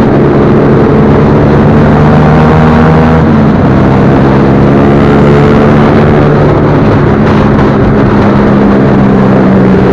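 Motorcycle engine running at a steady cruise, its pitch easing a little in the first seconds and then holding level, with wind rushing over the microphone.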